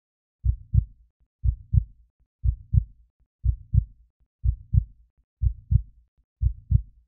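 Heartbeat sound effect: a steady lub-dub of paired low thumps, seven beats at about one a second.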